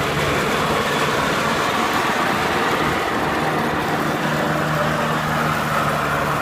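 Riding lawnmower engine running steadily, too loud to talk over.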